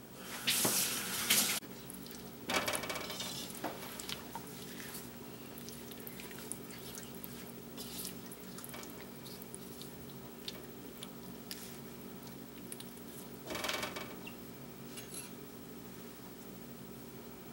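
A silicone spatula scrapes and stirs through chocolate chips and sweetened condensed milk in a nonstick pot, melting them together. It comes as a few short scrapes, the loudest near the start, over a steady low hum.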